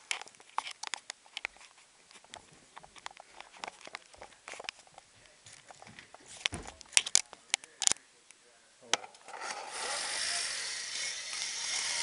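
Scattered clicks and knocks of a handheld camera being moved, with steps on a hard floor. About nine seconds in, a louder steady rushing hiss starts and lasts about three seconds.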